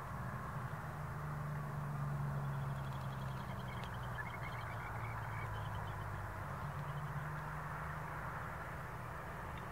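Two Pacific National NR class diesel-electric locomotives approaching at a distance, their engines a steady low drone whose pitch drops a little about halfway through and rises again later. A small bird trills a few times in the middle.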